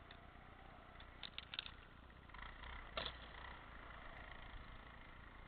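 Faint handling sounds as an ice-fishing tip-up is lifted from its hole and the line is hauled in by hand: a few light clicks just over a second in and one sharper click about three seconds in, over a low hush.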